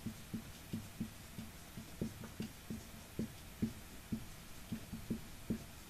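Dry-erase marker writing on a whiteboard: a run of soft, short taps and strokes, about two or three a second.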